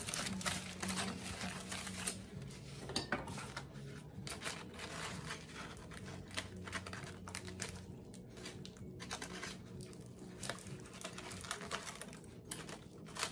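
Aluminium foil crinkling and crackling as a crumpled foil parcel is pulled open by hand, in dense irregular crackles.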